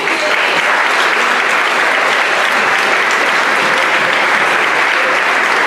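Audience applauding: many people clapping steadily, starting suddenly and holding at an even level.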